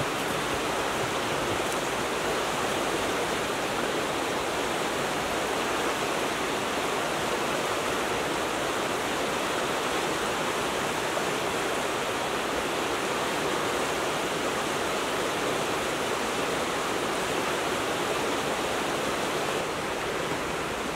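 River water rushing steadily over rocks and around a stone bridge pier: a fast, shallow stretch with white water.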